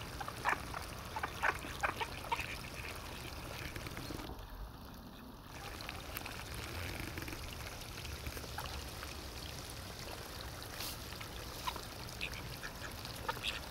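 A small flock of pond ducks, call ducks, mallards and a mandarin among them, quacking now and then, with water splashing around them as they dabble. Several quick quacks come in the first couple of seconds and again near the end.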